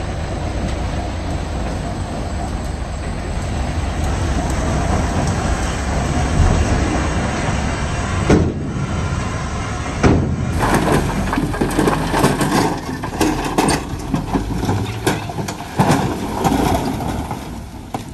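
Dump truck tipping a load of soil and rocks, its engine running with a steady low rumble. After about ten seconds comes a run of knocks and clatters as rocks tumble out of the raised bed.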